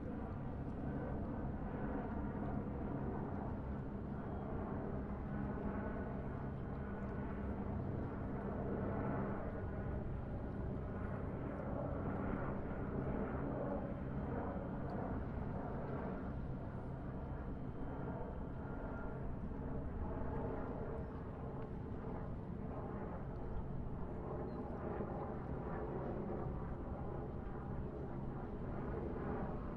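Ocean-front ambience: a steady outdoor background wash, with most of its weight low in pitch and a few faint steady tones mixed in.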